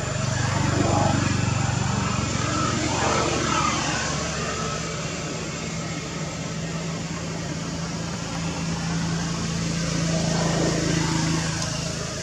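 Motor traffic: a low, steady engine hum over a hiss, swelling about a second in and again near the end as vehicles go by.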